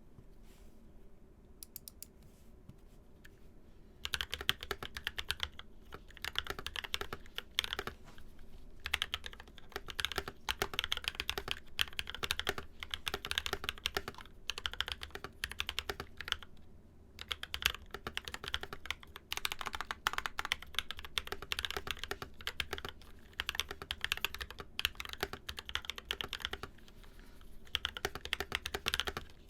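Typing on an NK65 Entry Edition mechanical keyboard with lubed Zykos tactile frankenswitches (Glorious Panda top and stem, Zealio v2 bottom housing, 67g springs), Holee-modded Cherry clip-in stabilizers and silicone inserts. A few scattered keystrokes come first, then fast continuous typing from about four seconds in, broken by a few short pauses.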